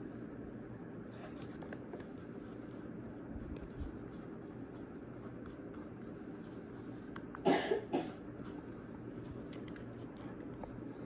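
A person coughs twice in quick succession, about seven and a half seconds in, over a steady low hum with faint scattered clicks.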